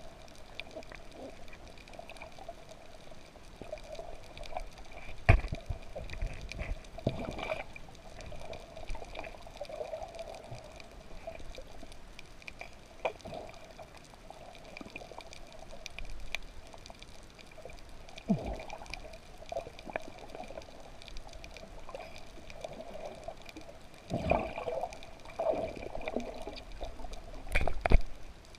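Underwater sound picked up through a camera's waterproof housing: muffled water movement and bubbling over a steady hum, broken by a few dull thumps, about five, seven, eighteen, twenty-four and twenty-eight seconds in.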